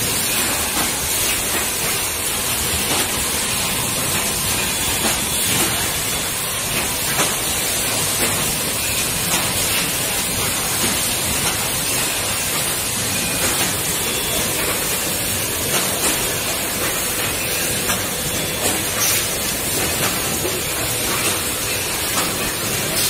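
Automatic PET lid thermoforming and stacking machine line running: a loud, steady hiss of machinery noise with small irregular knocks.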